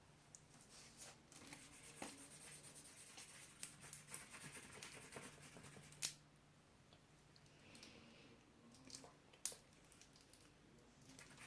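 Near silence: faint handling noises as clear glue is squeezed from its bottle into a bowl, with scattered soft clicks and two sharper clicks, one about halfway and one near the end.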